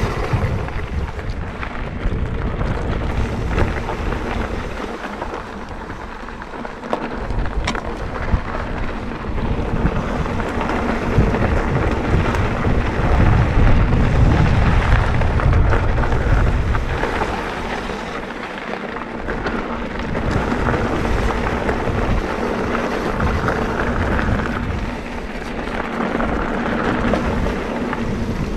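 Wind rumbling on the microphone over a mountain bike's tyres rolling and crunching on dry dirt and gravel trail, the noise swelling and fading as the bike gathers and loses speed.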